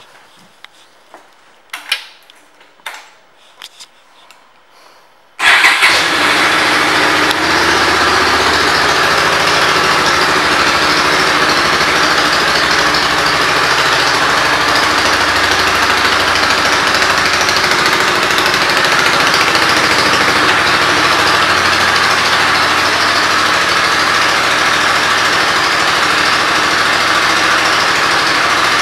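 A few faint clicks, then about five seconds in the 1998 Suzuki Marauder 800's V-twin engine starts suddenly and runs steadily at idle.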